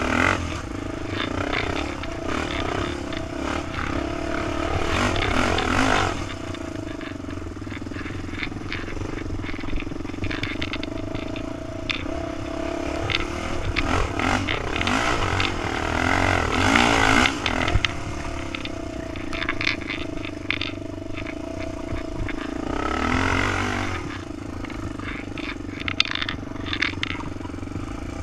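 Honda 400EX quad's single-cylinder four-stroke engine running under way over sand, revving up and back down three times between steadier stretches, with clatter and rattling from the machine over the bumps.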